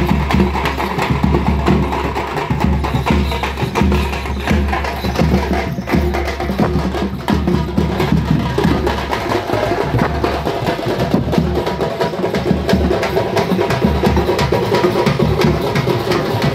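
A group of parai (thappu) frame drums beaten with sticks in continuous, fast, dense drumming.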